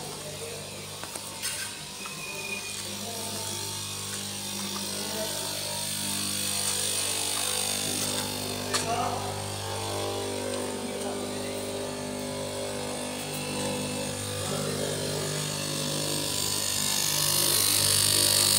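Steady electric machine hum, with the hiss of a straight-knife cloth cutting machine running through layered fabric growing louder near the end.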